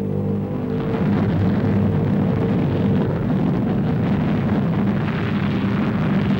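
Loud, steady roar of a fighter jet's engines, with faint music fading out in the first second.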